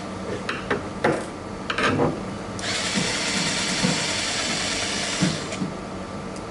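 Electric screwdriver with a 2.5 mm hex bit running to loosen the bolt that holds a drone arm, in one steady run of about three seconds in the second half. A few sharp clicks and knocks of the tools come before it.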